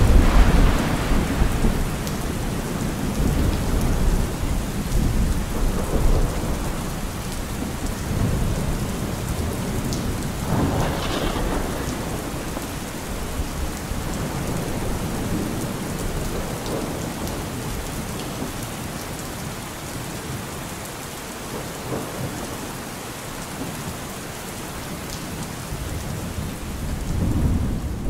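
Steady rain with rolling thunder: a loud roll at the start, another about ten seconds in, and one swelling near the end.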